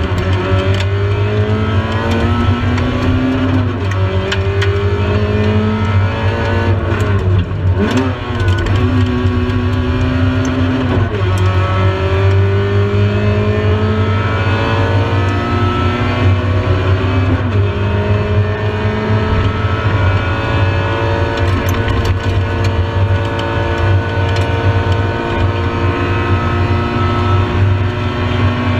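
Rally car engine heard from inside the cabin, pulling hard in long rising sweeps of pitch that drop sharply at each gearchange or lift, several times over, with the deepest drop and recovery about a quarter of the way through. A steady low drone runs beneath it.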